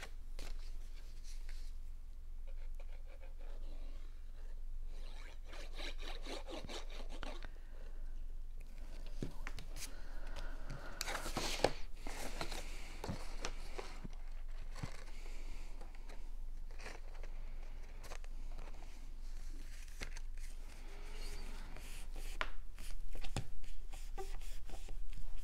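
Cardstock being handled and folded: paper rustling, rubbing and scraping on the table, with scattered light taps and a louder rustle about eleven seconds in.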